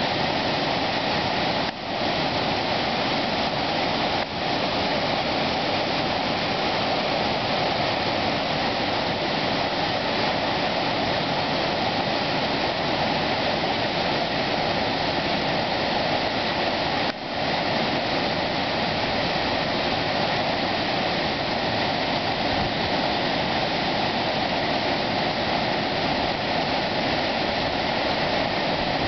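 Weeks Falls' whitewater cascade pouring down a rocky chute: a steady, full rush of water, dipping briefly in level three times.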